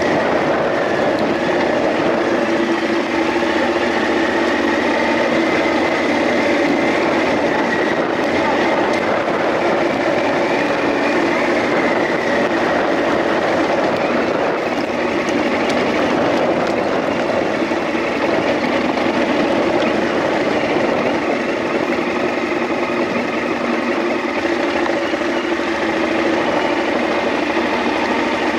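Off-road trail motorcycle engine running steadily under way on a gravel dirt track, its pitch holding fairly even with small rises and falls.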